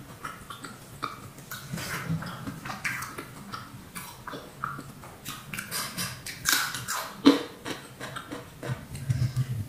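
Chewing and wet mouth smacks of someone eating soft battered fried tempeh with rice by hand, with irregular small clicks and one sharper click about seven seconds in.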